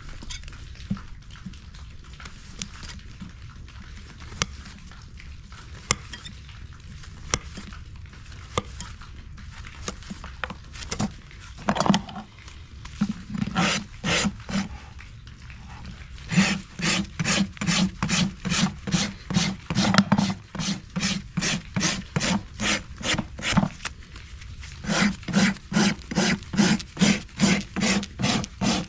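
Farrier's hoof rasp filing across the bottom of a horse's hoof: rhythmic rasping strokes, about three a second, beginning about halfway through, with a short pause near the end. Before the rasping, only scattered light clicks and scrapes.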